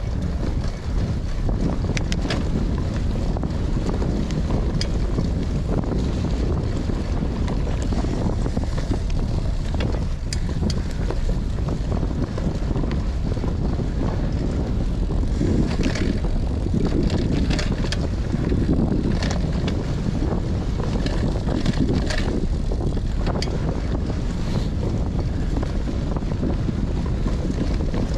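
Wind buffeting the microphone over the steady rumble of a Cannondale CAADX gravel bike's tyres rolling on a dirt trail. Scattered clicks and rattles from the bike over rough ground come thicker about halfway through.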